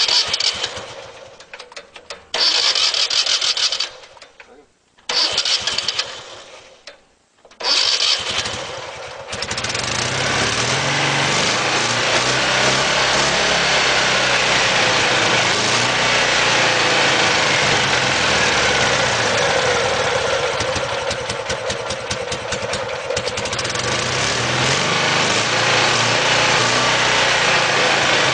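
A Citroën 3CV's 602 cc air-cooled flat-twin engine cranked by its starter motor in four short bursts, catching on the fourth about ten seconds in and then running steadily: the first start of the freshly restored engine. The revs sag briefly about twenty seconds in and pick up again.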